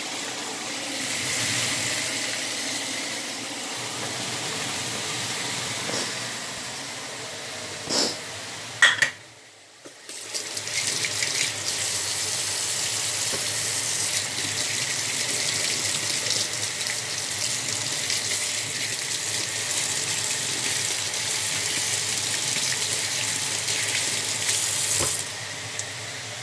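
Kitchen tap running into a stainless-steel sink, a steady rush that starts about ten seconds in and drops off near the end. Before it comes a softer hiss and two short knocks.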